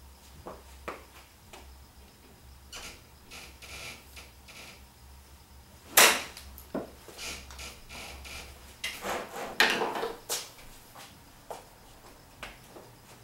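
Golf club striking a ball off a hitting mat about six seconds in, a single sharp crack, the loudest sound here. A few seconds later comes a quick cluster of knocks and rattles, with light taps before and after.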